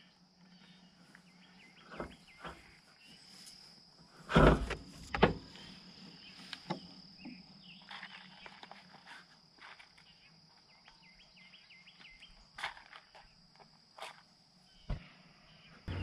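Scattered clicks and knocks from a long-handled propane weed torch being handled and readied for lighting, with two louder thumps about four and five seconds in, over a steady insect drone.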